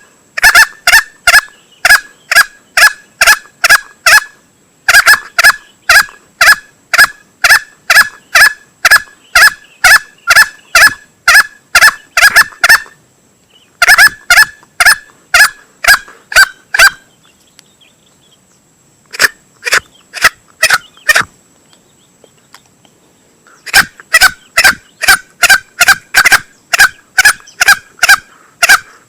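Male green junglefowl calling: a fast run of sharp, loud notes, about three a second, in bouts of several seconds broken by short pauses.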